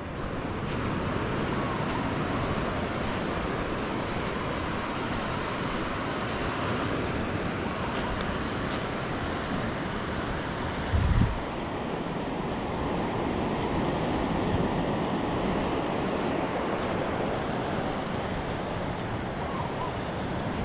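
Steady wash of sea surf with wind on the microphone, and one brief low thump a little after halfway.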